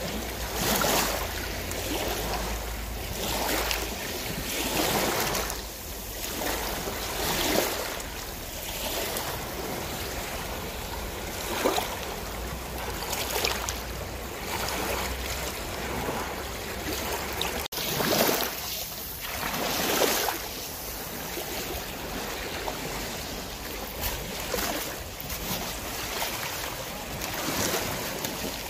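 Sea water sloshing and splashing against the hull of a slowly cruising boat, swelling irregularly every second or two, with wind buffeting the microphone.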